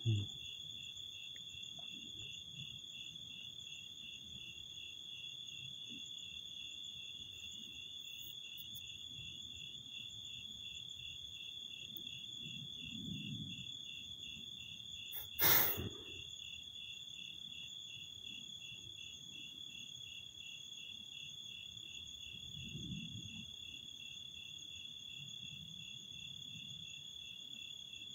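Crickets trilling steadily in a continuous high-pitched chorus, with one sharp click about halfway through.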